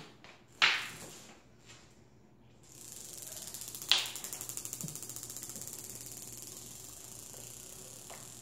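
A marble knocked and rolling across a ceramic tile floor: two sharp clicks, about half a second and about four seconds in, then a long, rapid, even ticking rattle as it rolls.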